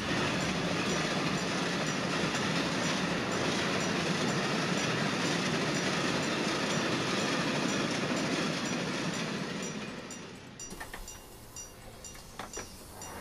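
A passenger train passing close by, a dense rumble and rattle of wheels on rails that fades away after about nine seconds, leaving a quieter stretch with scattered clicks.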